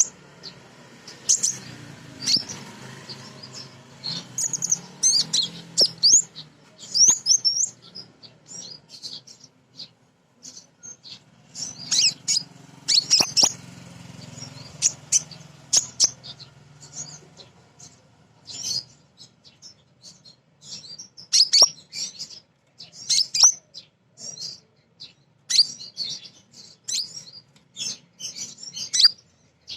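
Female kolibri ninja sunbird calling: rapid bursts of sharp, high-pitched chirps and twittering trills, coming in quick clusters with short gaps. A faint low hum runs underneath twice.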